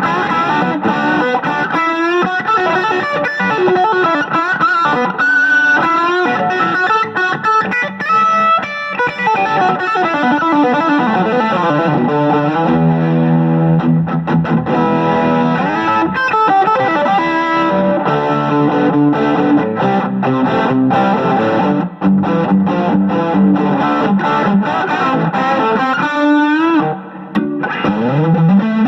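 Firebird electric guitar played through a Crate GT-80 amplifier: a continuous run of riffs and lead lines, with a couple of brief breaks and rising slides near the end.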